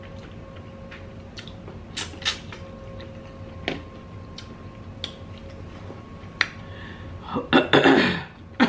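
Close-miked eating of seafood-boil prawns: sharp wet mouth clicks and small crunches about once a second over a faint steady hum, then a short breathy laugh near the end.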